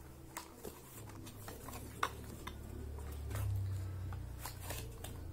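Small paperboard product carton being opened by hand: scattered light clicks and scrapes of the cardboard flaps, the sharpest about two seconds in, over a low steady hum.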